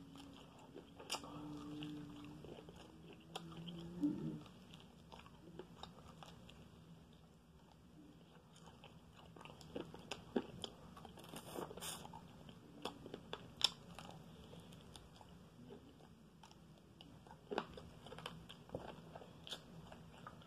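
Quiet biting and chewing of fried chicken wings, with scattered crunches and mouth clicks as the meat is torn from the bone. A faint low hum runs under the first four seconds.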